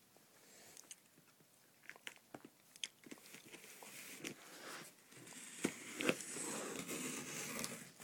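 Shoe box being handled and opened: scattered light clicks and knocks, then a steady crinkling rustle of packing from about five seconds in.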